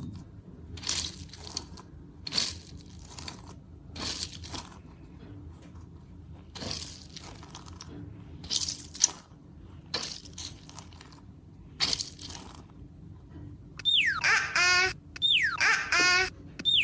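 Slime being squeezed and pressed, making short crackling crunches every second or so. Near the end come three quick falling-whistle cartoon sound effects, each ending in a warble.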